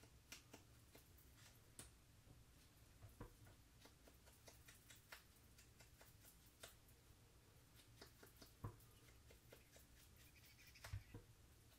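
Faint, irregular soft taps of a sponge dauber dabbing on an ink pad and on the edges of a cardstock petal, with a light handling of the paper; otherwise near silence.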